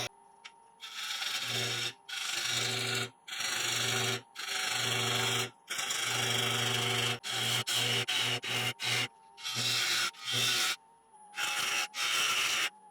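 A turning tool cutting into the inside of a spinning ash bowl blank on a wood lathe, in a series of short passes of a second or so with brief breaks where the tool lifts off. It is hollowing a hard, crotch-grain ash bowl.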